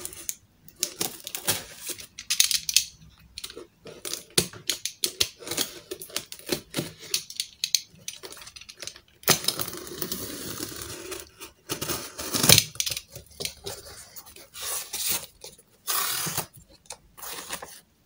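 Utility knife slitting the packing tape on a corrugated cardboard shipping box: irregular scrapes and clicks of the blade and box, with a longer rasping tear in the middle as the blade runs along the taped seam. Cardboard flaps are pulled open near the end.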